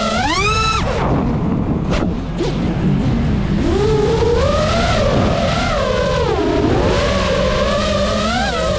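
FPV quadcopter's motors whining, the pitch rising and falling with the throttle. A sharp rising punch ends abruptly about a second in, and two brief clicks come about two seconds in. The motors then swell and sag again, over a steady low rumble.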